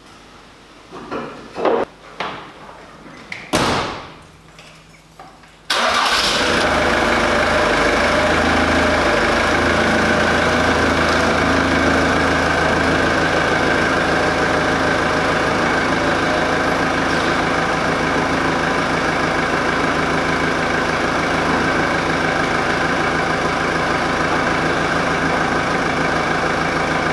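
A few knocks and clunks, then about six seconds in the Ford Transit's engine starts and runs steadily as the chassis cab creeps forward out from under the raised bed.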